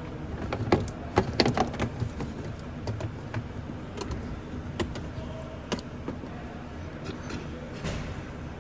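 Plastic interior trim of a car's center console clicking and knocking as it is worked loose and handled, with a cluster of sharp clicks in the first two seconds and scattered knocks after.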